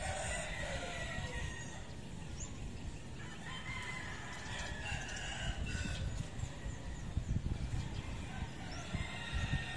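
Rooster crowing several times, each crow about a second long, over a low rumble.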